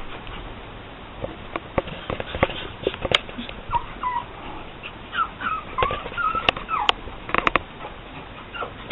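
Pug puppy whimpering: a string of short, high whines in the middle, among scattered sharp clicks and taps.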